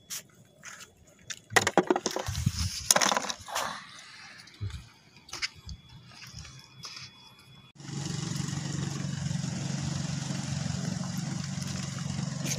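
Shells and stones clicking and knocking as they are picked over by hand among rocks. About eight seconds in, a steady motor drone starts suddenly and carries on.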